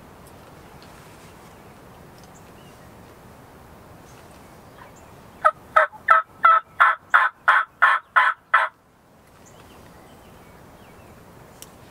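A hunter's mouth-blown turkey call giving a run of about ten loud, evenly spaced yelps, roughly three a second, starting about five seconds in. These imitate turkey calls to draw birds toward the blind.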